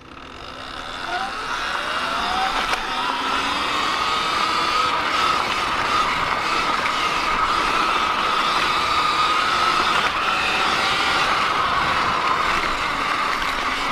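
Sur-Ron X electric dirt bike setting off and riding: the motor's whine rises over the first couple of seconds, then holds steady over a constant rush of wind and tyre noise.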